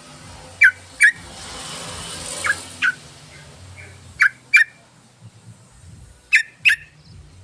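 Yellow-vented bulbul (trucukan) calls: sharp, short notes in quick pairs, four pairs about two seconds apart, as in a bird-luring call recording. A soft hiss swells briefly between the first and second pairs.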